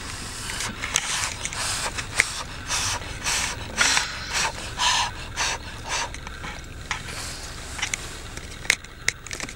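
Irregular rustling and clicking handling noises close to the microphone, over a low steady hum inside the car.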